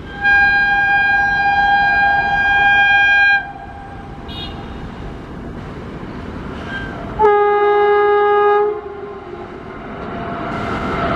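An Indian Railways locomotive horn gives two long honks. The first is higher-pitched and lasts about three seconds; the second is lower and shorter, about a second and a half. The rumble of the approaching train grows louder near the end.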